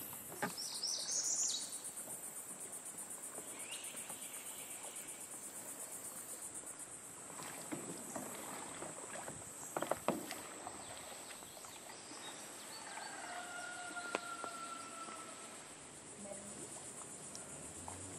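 A steady, high-pitched, pulsing insect buzz, over the sounds of kayak paddling: water stirring and a few sharp knocks of paddle on hull, the loudest about ten seconds in.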